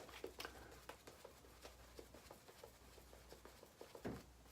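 Faint, irregular scratching clicks, several a second, of a razor cutting through stubble on lathered skin.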